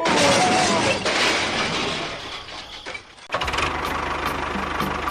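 A loud rushing noise fades away over about two seconds, then stops abruptly. About three seconds in, a small engine starts up and runs steadily with an even low pulse.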